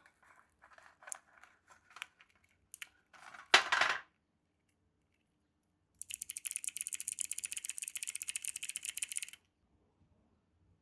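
Plastic keycaps being handled and unpacked: scattered small clicks and taps, with a louder knock about three and a half seconds in, then a fast, even run of light clicking for about three seconds.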